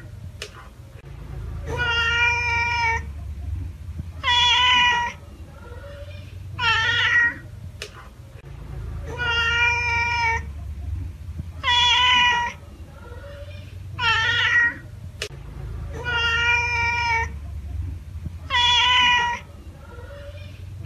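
A domestic cat meowing again and again, one meow about every two and a half seconds, eight in all, each call under a second long and much alike.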